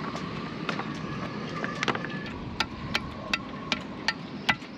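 Sharp metal taps on a long windlass mounting bolt as it is knocked out of the deck, a few at first, then about two to three a second, over a faint steady high hum.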